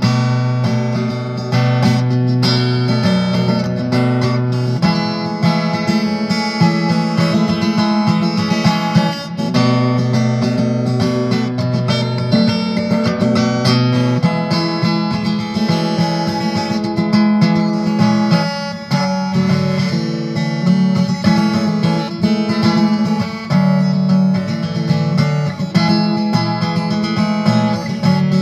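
An acoustic guitar being played, its chords ringing and changing every few seconds.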